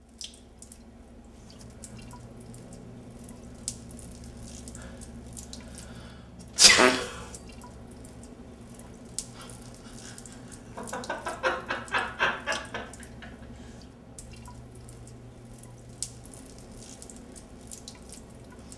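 Urine trickling and splashing into a urinal over a steady low hum. About six and a half seconds in comes one loud sneeze, and about eleven seconds in a fart of rapid pulses lasting about two seconds.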